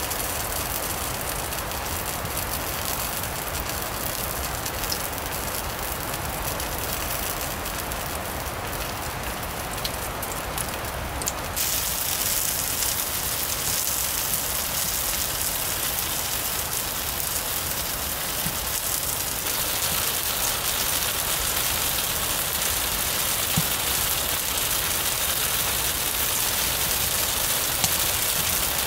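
Steady rain falling, a continuous even hiss that shifts slightly in tone twice, about a third and two thirds of the way through.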